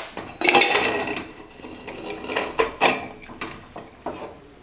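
Metal clanks and scrapes from an aluminium Hawkins pressure cooker being opened after its pressure has been released. The weight is lifted off the vent, and the lid is worked loose and taken out.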